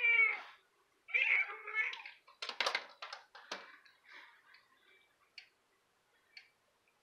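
Cat meowing twice near the start, then a quick run of clicks and knocks and a few faint ticks as it moves about the tiled window sill.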